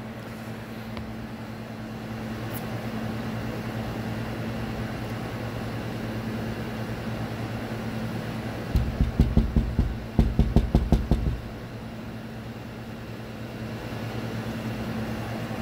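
Steady low motor hum from a running machine. About nine seconds in comes a fast run of loud knocks or rattles that lasts a couple of seconds.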